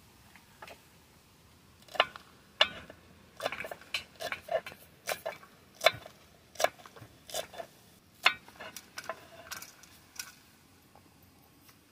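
Kitchen knife chopping green chillies on a wooden cutting board: a run of irregular sharp knocks of the blade striking the wood, starting about two seconds in and stopping near the end.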